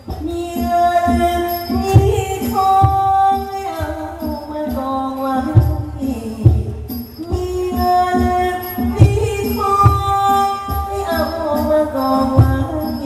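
Thai likay theatre band music: a held melody stepping in pitch over regular drum beats.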